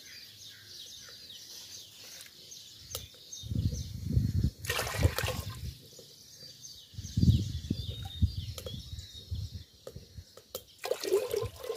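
Water poured from a steel bowl into a clay cooking pot, splashing and sloshing in two bursts about four and eight seconds in. Birds chirp faintly throughout.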